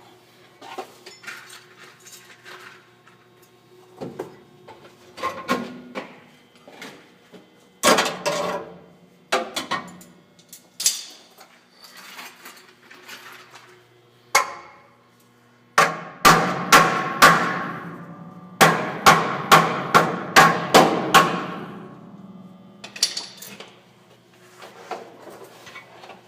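Hammer blows on the sheet-steel floor of a 1964 Ford F100 cab, each strike ringing on briefly. The blows come scattered at first, then about a dozen land in quick succession past the middle.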